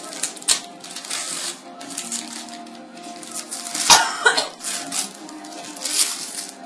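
Shiny gift-wrapping paper crinkling and tearing in a run of short crackles as tape is peeled off and a present is unwrapped by hand, with one sharper, louder noise about four seconds in.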